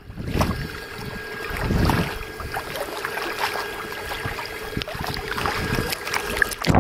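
A kayak moving on open sea: water splashing and slapping along the hull and wind buffeting the microphone in gusts, over a steady hum.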